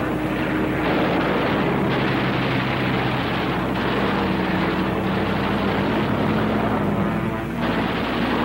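Steady drone of propeller aircraft engines under a rushing wind noise, with a low hum of several tones. The sound changes abruptly a few times, as if spliced together.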